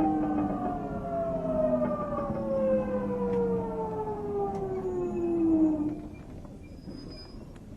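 Toshiba VVVF inverter and traction motors of a JR Central 373 series train whining in several falling tones as the train slows, the pitch sliding steadily down until the whine fades out about six seconds in, leaving a quieter rolling rumble. This set, F2, is known for an unusual inverter sound.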